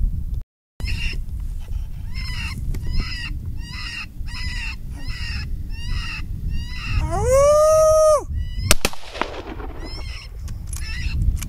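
Predator caller's high yipping barks repeating about twice a second, then a loud drawn-out howl about seven seconds in, cut off by a rifle shot; two more sharp cracks follow near the end.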